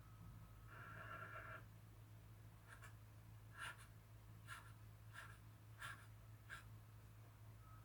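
Faint drawing strokes on paper: one longer scratch about a second in, then six short, quick strokes, over a steady low hum.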